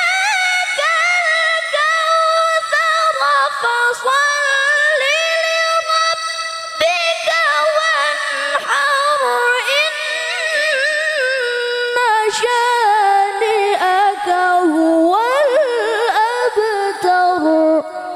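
A girl reciting the Qur'an in melodious tilawah style into a microphone: one long ornamented vocal line with wavering pitch and held notes, climbing and falling in a rapid flourish near the end.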